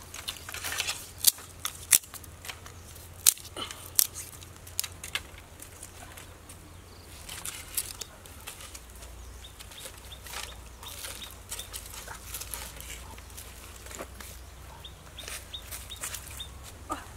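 Dry sticks clicking and snapping as they are handled and poked about over an ash-filled fire pit. There are several sharp loud snaps in the first few seconds, then fainter, scattered taps.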